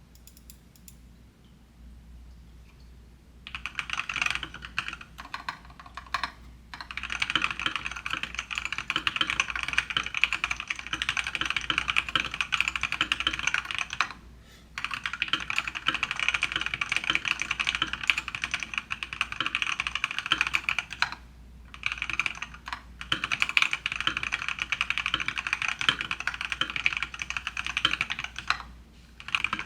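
Typing on a foam-modded GamaKay LK67 keyboard with lubed and filmed C³Equalz Tangerine 62g linear switches under PBT keycaps. After a few quiet seconds there are some scattered keystrokes, then fast continuous typing broken by a few short pauses.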